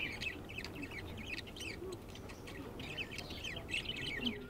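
Small cage birds chirping in quick, continuous high chirps.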